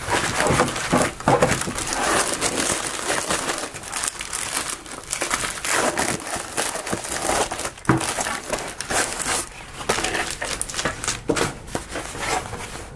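Plastic bubble mailer being opened and crinkled by hand: a continuous run of rustling and crackling plastic.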